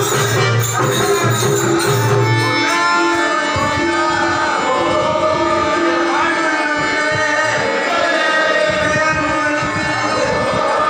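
Hindu devotional music: a group of voices singing over a steady drone, with hand drum. A low sustained note drops out under three seconds in, and the singing carries on with a rising and falling melody.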